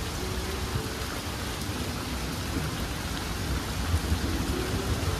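Heavy rain pouring onto leafy trees, with a low rumble of thunder swelling about four seconds in.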